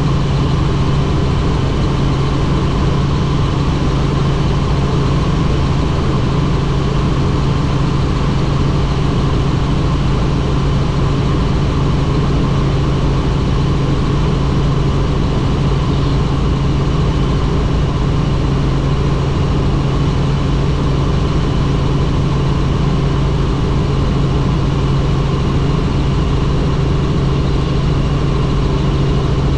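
Helicopter in flight: a loud, steady drone of engine and rotors with a constant hum that holds one pitch.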